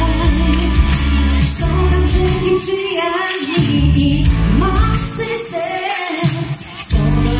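Live pop song: a woman sings lead into a microphone over backing music with a steady bass line.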